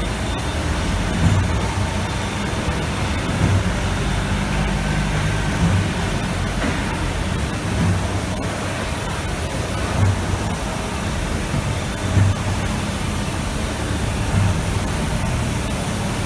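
Cardboard laminating machine running in a factory: a steady hiss with a low rumble that swells and fades.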